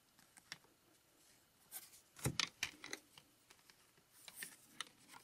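Faint rustles and light clicks of cardboard baseball cards being handled: one card set onto the stack and the next slid off. The sharpest taps come in a cluster about two seconds in.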